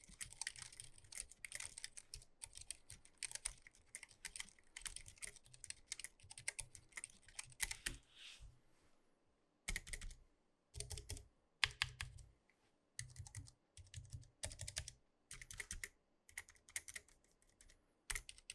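Typing on a Keychron K3 low-profile optical mechanical keyboard: quick runs of key clicks for the first eight seconds or so, then slower, more spaced keystrokes in short clusters.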